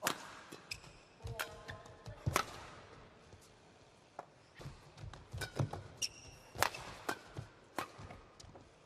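Badminton rally: a racket strikes the shuttlecock in sharp single cracks, a couple early on and then several in quick succession in the second half, with short high squeaks of court shoes on the mat between hits.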